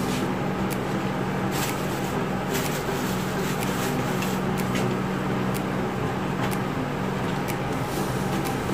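Hands pressing and smoothing wet cement over a plastic-covered mould, with the plastic sheeting rustling and scattered short clicks and taps. A steady low hum runs underneath.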